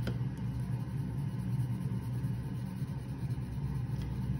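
A steady low rumble in the background, even and unbroken throughout, with a couple of faint clicks.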